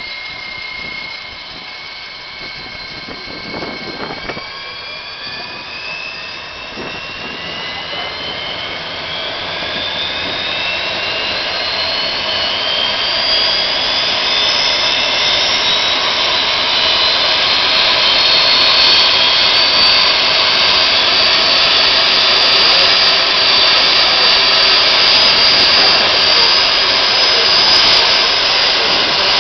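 Phantom F4 jet engine on a Peterbilt 359 jet truck spooling up. Its whine rises in pitch and grows louder over about fifteen seconds, then holds steady at a loud, high pitch.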